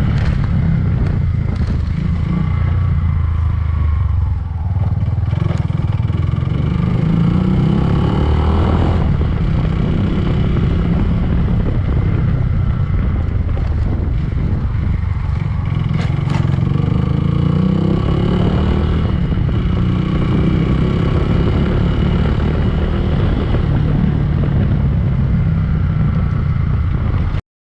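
Yamaha Fazer 150's single-cylinder four-stroke engine running, with its speed rising and falling a few times, fitted with a new cylinder head to cure a valve noise. The sound cuts off abruptly near the end.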